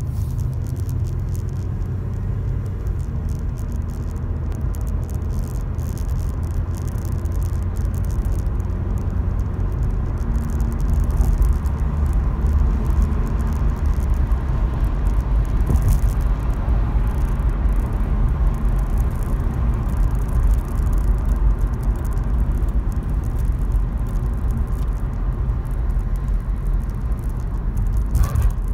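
Steady low rumble of road and engine noise heard inside a moving car cruising along a paved road.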